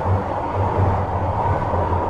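Kyoto Municipal Subway 50 series train running between stations in a tunnel, heard from inside the car: a steady rumble of wheels on rail with a low hum and a faint steady whine.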